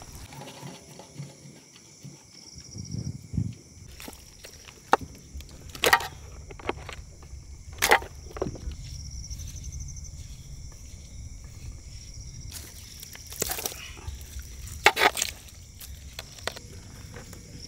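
Cooked crab and lobster shells cracking and meat being torn apart by hand on steel platters: scattered sharp cracks and clinks, a few standing out loudly. Insects chirp steadily behind them.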